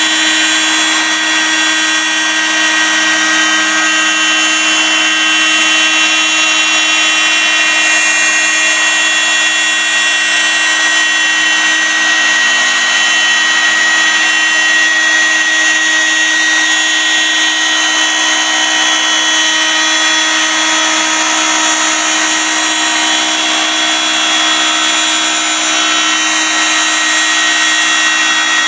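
CNC router spindle with its cutter routing curved grooves in a wooden sheet: a steady whine of several held tones over the noise of the cut.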